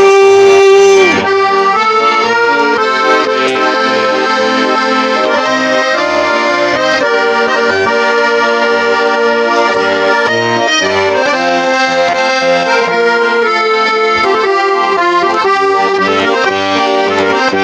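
Accordion playing an instrumental interlude of a Russian Gypsy-style song: melody and chords over a steady, regular bass accompaniment. A held sung note from the end of the verse fades out about a second in.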